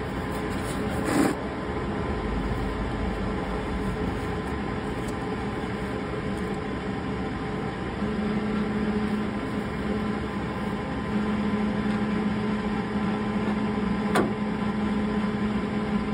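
A steady mechanical hum with a low tone that grows stronger about halfway through, and two light knocks, one about a second in and one near the end.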